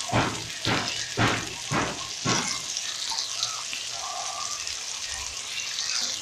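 Fresh ginger being grated on a metal hand grater, five scraping strokes about two a second. After them comes a steady sizzling hiss from the beans frying in the pot.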